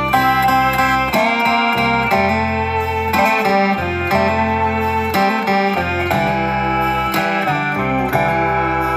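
Background music, a melody of separate notes changing every half second or so.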